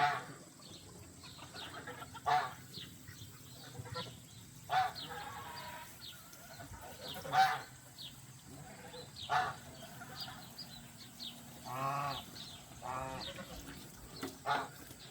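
Geese honking in short calls every couple of seconds, with a longer wavering call about twelve seconds in.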